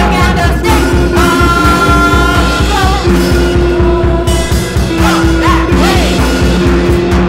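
Noise-rock song from a bass-less three-piece: guitar notes held over a rapid, steady low drum pulse, with singing.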